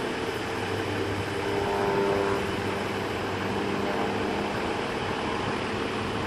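Steady engine drone with a low hum underneath, swelling slightly about two seconds in.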